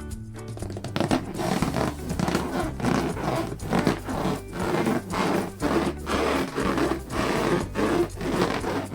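Latex balloons being squeezed and rubbed in repeated, irregular scraping strokes, several a second, over quiet background music.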